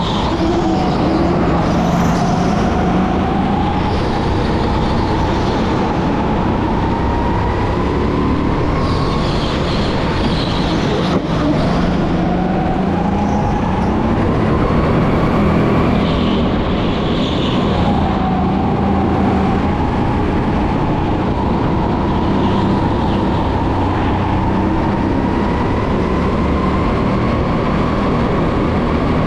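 Electric racing kart's motor whining under way, its pitch dropping and climbing back several times as the kart slows and accelerates, over steady tyre and running noise.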